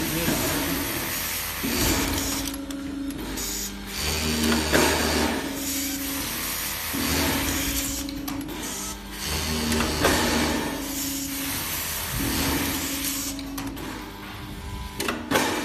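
TongBang automatic glove-sewing machine, which also sews in labels, running in repeated cycles. Each stitching run hums for about a second and a half and comes back every two to three seconds, with mechanical clicks and knocks between runs.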